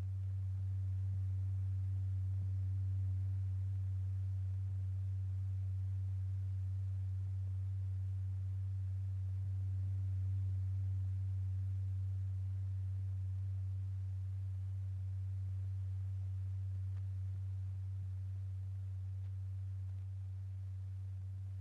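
A steady low pure tone near 100 Hz, with a faint higher overtone, driving a stretched-paper diaphragm strewn with lycopodium powder. Its loudness swells slightly and eases a little near the end.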